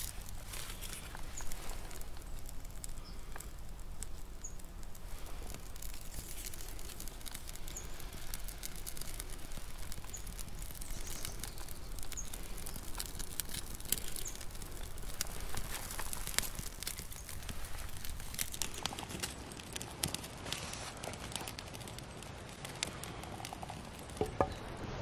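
Fatwood kindling and birch bark being handled while a small wood fire catches and crackles: many small irregular clicks and rustles.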